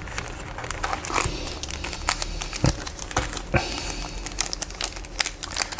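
Foil trading-card pack wrapper crinkling and crackling as it is handled, with many short, sharp clicks and rustles scattered irregularly.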